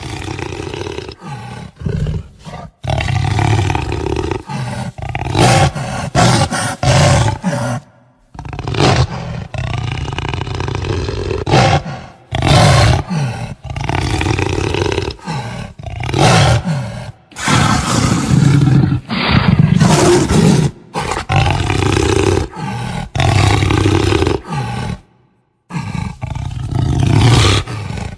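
Jaguar growling and roaring in a series of loud calls, about one to two seconds each, strung together from several recordings with abrupt cuts between them.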